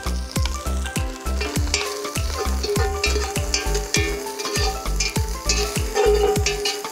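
Smoked sausage sizzling in a cast-iron Dutch oven while a long utensil stirs and scrapes the pieces around the pot, with background music carrying a deep pulsing bass beat underneath.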